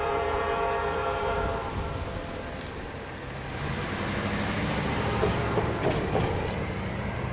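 EMD switcher locomotive's horn sounds a chord that stops about two seconds in. Then its diesel engine comes up louder under throttle, with a few sharp clanks from the train near the end.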